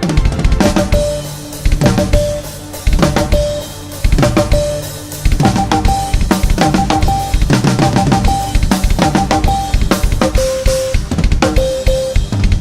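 Drum kit beat with Morse code beeps over it: a steady tone keyed in short and long groups, jumping to a higher pitch about five seconds in and to a lower one about ten seconds in.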